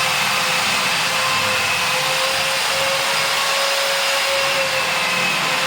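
Electric motor running steadily, a constant whine over a loud hiss.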